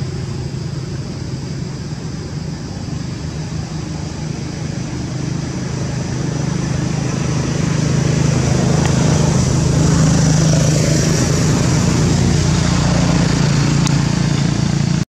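Steady hum of a running motor engine, growing louder about halfway through.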